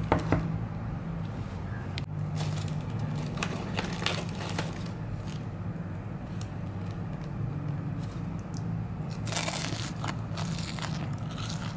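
Thin plastic bag and paper bag crinkling and rustling in short bursts as a hand handles it and picks food out, with a longer stretch of crinkling near the end. A steady low hum sits underneath.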